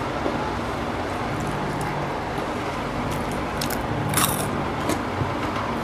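Eating sounds of hands mixing rice on steel plates over a steady background rush. There are a few light clicks, and a sharper clink about four seconds in as a bowl of dal is tipped over the rice.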